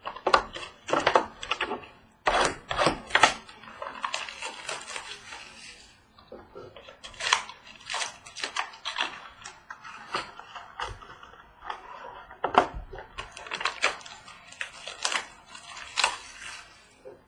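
Sealed boxes of trading cards being opened and handled: plastic wrap crinkling and cardboard rustling in quick, irregular crackles and scrapes.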